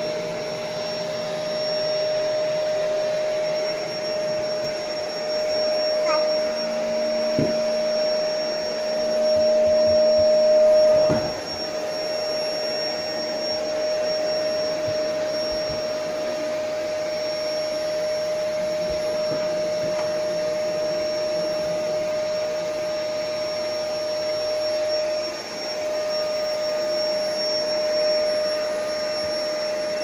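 Canister vacuum cleaner running steadily, with a steady whine over its rushing air. It gets louder for a few seconds midway, then drops back suddenly, and the nozzle knocks a few times.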